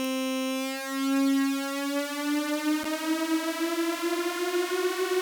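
Uplift riser from a Native Instruments Massive synth patch: one held note, rich in harmonics, glides slowly upward in pitch as a macro knob is turned, its unison detune and reverb opening with it so the tone grows wider and more smeared. A small click about three seconds in.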